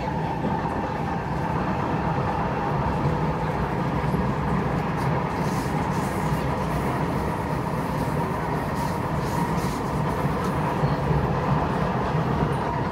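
Kawasaki C751B electric metro train running along the track, heard from inside the carriage: a steady rumble with a steady whine, and a few faint clicks about midway.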